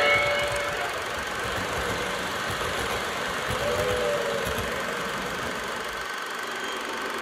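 O gauge model train rolling past on three-rail track, a low uneven rumbling from its wheels and motor that stops about six seconds in as the last car clears.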